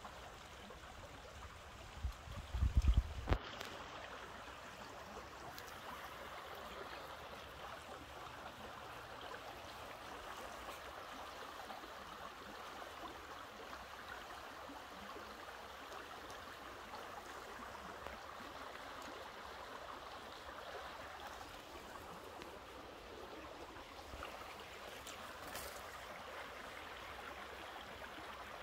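Stream water running steadily. A brief cluster of low thumps, ending in a click, comes about two to three seconds in.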